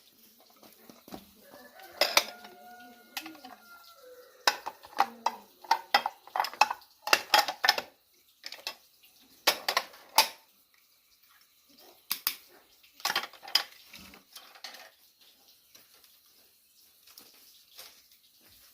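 Clattering of dishes and utensils: a run of sharp clinks and knocks, busiest and loudest from about five to ten seconds in, thinning out after that. A short gliding call, like a fowl's, comes about two seconds in.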